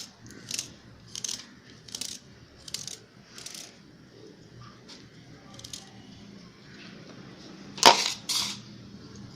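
Kitchen knife chopping ginger on a plate: sharp taps of the blade on the plate, about one and a half a second, then sparser, with two louder knocks close together near the end.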